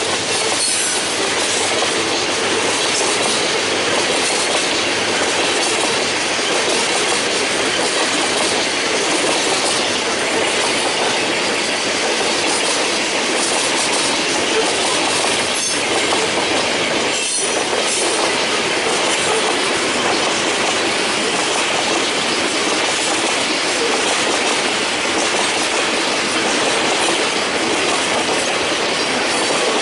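Freight cars (tank cars and hoppers) rolling steadily past over a grade crossing, their wheels clattering on the rails. Two sharp knocks stand out about halfway through.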